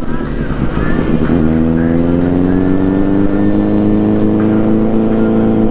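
Motorcycle engine running under way. From about a second and a half in, its pitch rises slowly and steadily as the bike gains speed.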